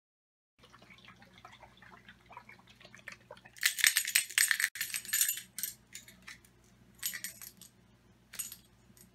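Grenade-shaped bottle of The General's Hot Sauce Shock and Awe being handled and its cap worked open: a dense clatter of sharp clicks and rattles about four seconds in, then shorter clusters of clicks near the end.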